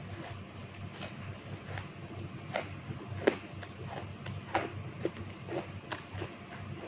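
Close-miked chewing of a mouthful of shaved ice: irregular crisp crunches, roughly one a second, the loudest about a third of the way in.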